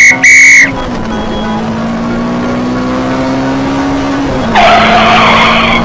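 Cartoon vehicle sound effects: two short, loud, high beeps, then a steady engine hum whose pitch creeps up and drops about four seconds in, followed by a tyre screech lasting about a second.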